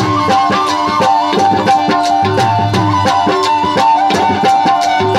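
Saraiki folk music, played live: a hand drum keeps a steady beat under a stepping melody line.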